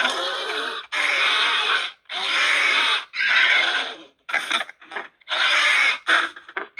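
Vocal sound effects for the animated monster Gallawallop: rough, raspy creature cries in about eight short bursts separated by brief gaps.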